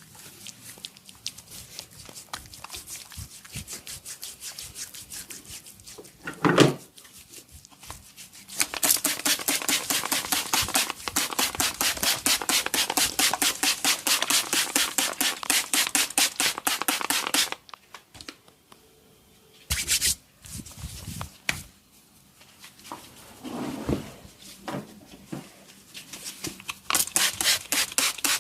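Hands rubbing over skin in a massage: faint strokes at first, then about nine seconds in a long run of fast, rhythmic rubbing strokes, several a second, that stops some eight seconds later. A single loud thump comes shortly before the fast rubbing, and a few short knocks follow it.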